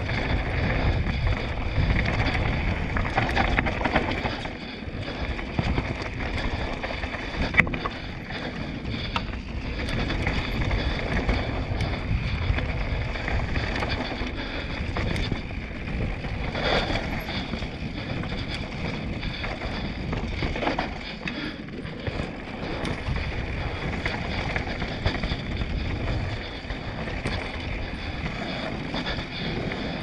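Mountain bike rolling fast down a dry dirt singletrack, its knobby tyres rumbling over the ground and the bike clattering over small bumps, with wind buffeting the body-mounted action camera's microphone. A single sharp knock stands out about seven and a half seconds in.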